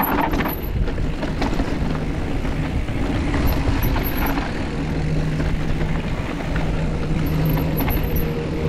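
Mountain bike running down a trail: steady rumble of tyres and wind on the microphone, with scattered rattles and knocks from the bike.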